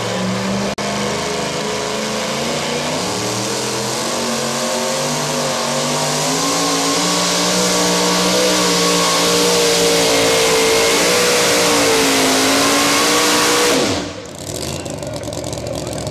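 Modified two-wheel-drive pulling truck's engine at full throttle hauling the pulling sled, its pitch climbing steadily as the run goes on. The engine sound drops off sharply about fourteen seconds in as the pull ends.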